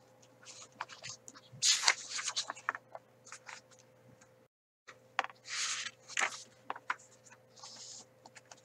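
Pages of a hardcover book being turned by hand: several short papery swishes and rustles, with small clicks and knocks of the book being handled. About halfway the sound cuts briefly to total silence.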